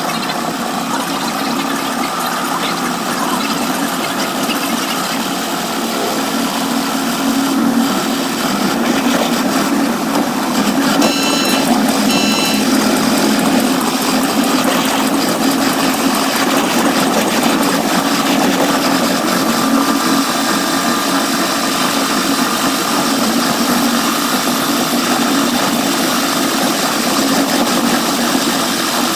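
Caltrain gallery cab car running along the line: steady rolling and engine rumble, with two short horn blasts about 11 and 12 seconds in.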